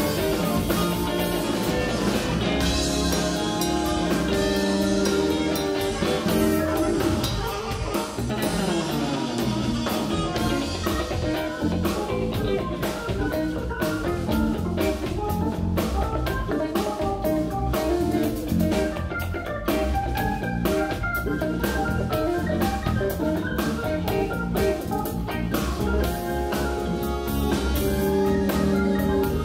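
Live soul-jazz band playing: electric guitar, keyboard, electric bass and drum kit together, the drums keeping a steady beat.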